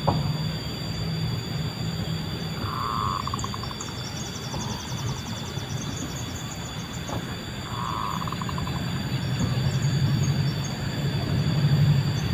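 Zebra dove (perkutut) cooing: a short call ending in a rapid rattle about three seconds in, a lower note after it, and the same rattling call again about eight seconds in. A steady low drone runs underneath and grows louder near the end, with faint high chirps early on.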